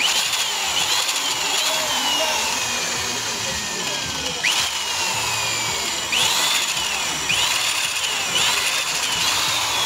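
Electric hand drill with a 5 mm bit running steadily as it drills into a stripped bolt hole in a motorcycle's aluminium cylinder head, opening it up for tapping to 6 mm × 1.0. Its whine sags slowly in pitch and jumps back up several times in the second half.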